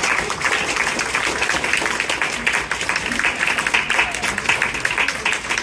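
Audience applauding: many people clapping together in a steady patter, with voices mixed in.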